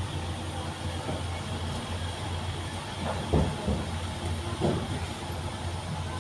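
Small pickup truck's engine running with a low, steady hum as it drives slowly up the road, with a couple of short dull thumps, one about three seconds in and another a second or so later.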